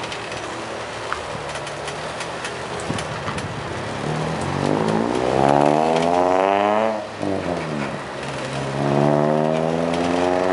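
A freight train's covered hopper cars rolling past with a steady rumble and scattered wheel clicks. A motor vehicle's engine rises above it, climbing in pitch and getting louder from about halfway in. The engine note falls steeply about seven seconds in, then climbs again and stays loud to near the end.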